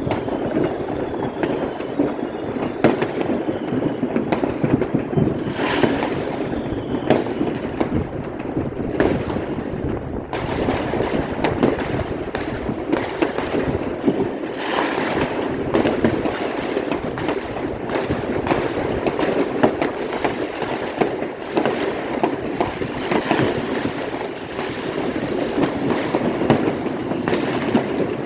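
A dense, unbroken barrage of fireworks and firecrackers: many overlapping bangs and crackles, with no pause between them.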